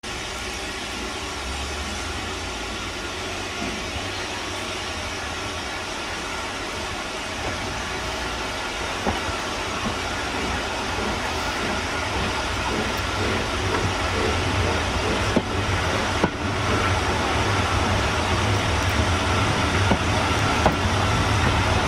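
Heritage train pulling slowly away from a station, heard from inside the rear cab: a steady low rumble and hum that grows gradually louder, with a few short knocks.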